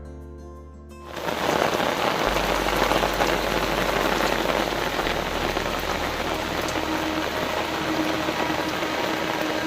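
Plucked-string background music for about the first second, then steady rain falling, with faint musical tones underneath.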